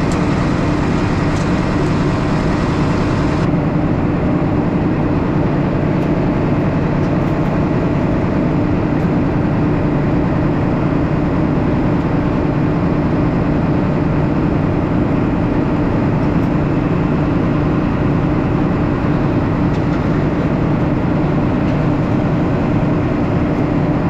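Combine harvester running steadily while shelling corn: a constant engine and threshing-machinery drone with a strong low hum. The higher hiss above it thins out suddenly about three and a half seconds in.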